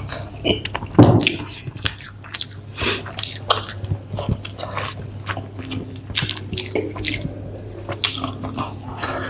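Close-miked chewing and biting of a burger and french fries: a run of short, irregular wet smacks and clicks, with a louder one about a second in.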